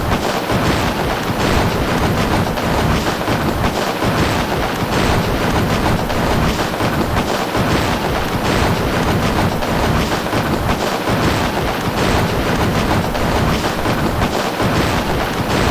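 Fireworks going off one after another in a dense, continuous barrage of bangs and crackling.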